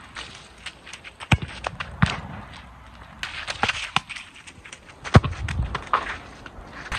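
Footsteps scuffing and splashing on a waterlogged football pitch during a run-up, with a few thuds, the loudest about five seconds in as the ball is struck.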